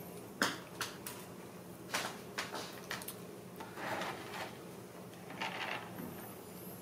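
Handling noise: light clicks, knocks and rustling of hands turning a plastic model locomotive on a plastic rotating display stand.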